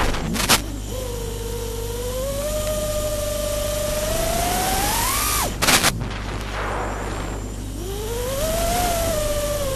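FPV quadcopter's brushless motors and propellers whining in flight. The pitch rises and falls with the throttle and drops away sharply twice, each time with a brief loud burst of noise.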